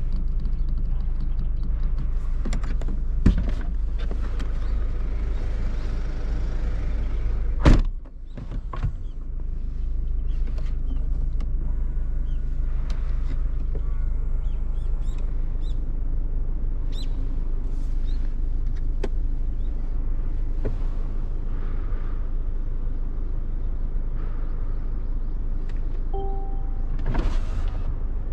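Mercedes-Benz E220d cabriolet's four-cylinder diesel and road noise with the top down: a steady low rumble, broken by a sharp click a few seconds in and a loud thump near eight seconds, after which it briefly quietens. A short beep sounds near the end.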